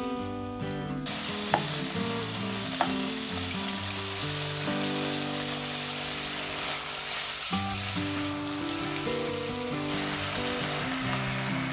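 Shrimp, squid and octopus frying in hot olive oil in a frying pan, a steady sizzle that starts abruptly about a second in, with a few sharp clicks of metal tongs against the pan early on. Background music plays underneath.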